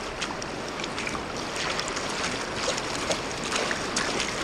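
River rapids rushing, with many small splashes of water against an inflatable river tube.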